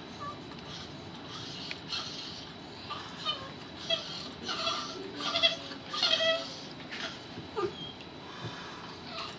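A Norfolk terrier making a run of short, squeaky, bleat-like whining sounds, bunched from about three to six and a half seconds in, with one short falling note a little later.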